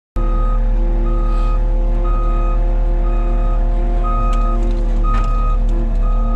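Back-up alarm on a work vehicle beeping about once a second, each beep about half a second long, over a steady engine running at constant speed. The vehicle is reversing.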